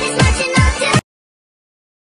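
Dance music with a heavy, deep kick drum beating about twice a second, cutting off abruptly about a second in and leaving dead silence.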